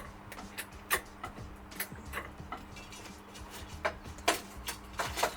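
Scattered clicks and light knocks from hands handling tools and equipment around a car being worked on, about a dozen at uneven spacing, the loudest about four seconds in.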